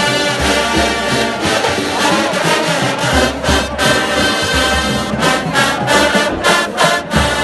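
College marching band playing loudly, led by trombones and trumpets: held brass chords, then from about five seconds in a run of short punched hits with brief gaps between them over low drum thumps.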